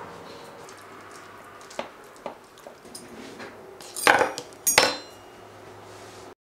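Metal fork clinking against a ceramic plate: a few light clicks, then two loud clatters with a short ring about four and five seconds in. The sound cuts off suddenly near the end.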